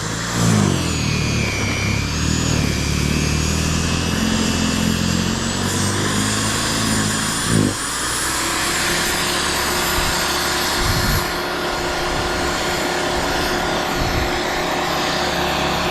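Corded electric snow blower running as it throws snow. Its motor pitch wavers under load for the first half, dips briefly, then settles into a steadier hum.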